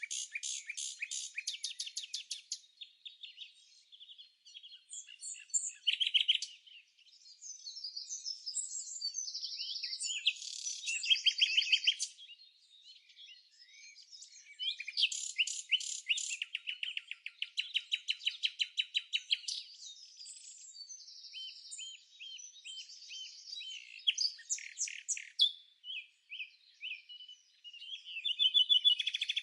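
Songbirds singing: bouts of rapid high trills and chirps, several seconds each, with short pauses between.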